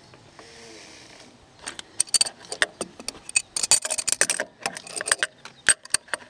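Adjustable wrench clicking and clinking against the fuel filter housing cap of a Cummins 5.9 diesel as it is fitted on and turned to tighten the cap. It starts with a soft rustle, then from under two seconds in comes an irregular run of sharp metallic clicks, densest a little past the middle.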